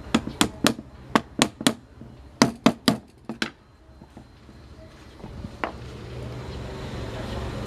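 About a dozen sharp knocks in quick, uneven succession over the first three and a half seconds, then a low steady hum that slowly grows louder.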